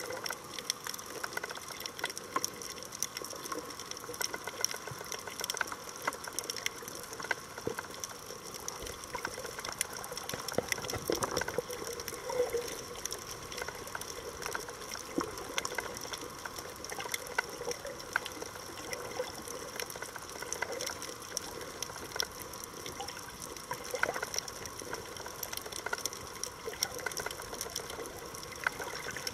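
Underwater sound on a coral reef, heard through a camera under water: a constant dense crackle of tiny clicks over a faint watery hiss, with faint steady tones underneath.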